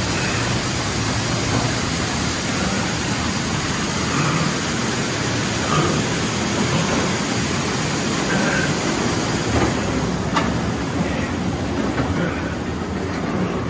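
Mine-ride train cars rolling along the track: a steady rumbling noise with a hiss over it, which thins out about ten seconds in.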